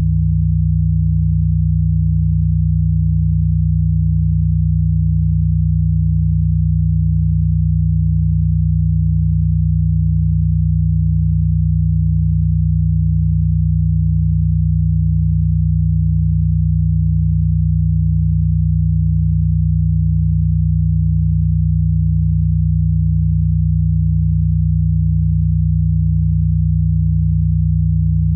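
A steady, low electronic sine-wave hum of a healing frequency tone. It stays at one unchanging pitch and level, with no beat or melody.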